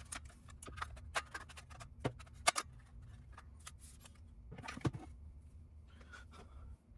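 Irregular light clicks and taps of small parts and tools being handled, with a few louder clicks around two and a half seconds in and near five seconds, over a steady low hum; the sound cuts off just before the end.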